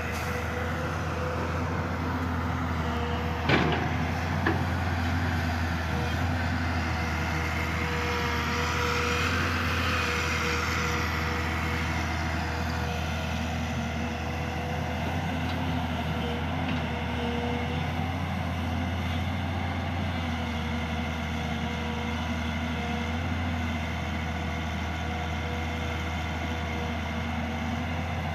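Diesel engines of a Volvo excavator and a dump truck running steadily as the excavator digs and loads soil, the engine working harder for a few seconds near the middle. One sharp knock about three and a half seconds in.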